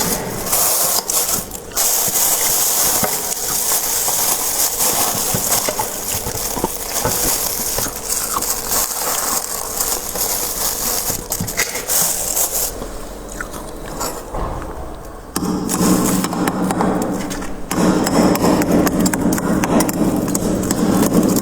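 Close-miked crunching and scraping of soft freezer frost, a dense run of fine crackles. About three-quarters of the way through, the sound turns lower and coarser.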